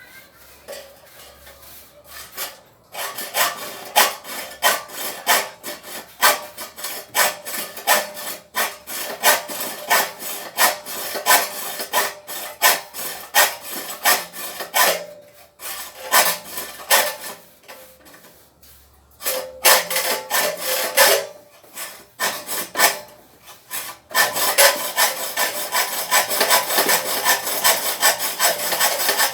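A hand tool scraping back and forth through wood in rhythmic strokes, about two a second, with two short pauses, then quicker steady strokes near the end.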